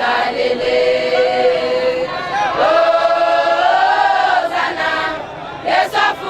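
Choir of mixed voices singing a hymn, holding long sustained notes.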